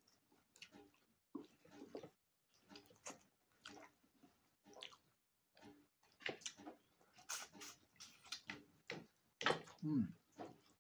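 Eating sounds close up: wet chewing and lip smacks at an irregular pace, with a short sound that falls in pitch near the end.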